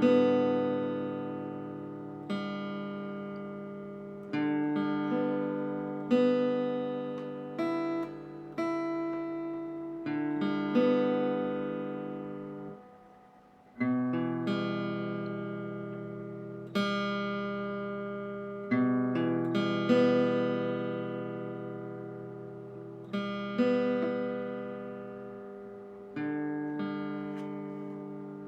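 Background music: slow acoustic guitar chords, each plucked and left to ring out, with a brief pause about halfway through.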